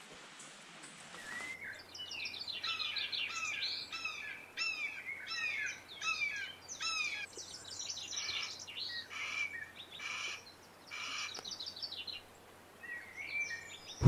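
A songbird calling a long series of short, hooked chirping notes, about two a second, with a few brief pauses.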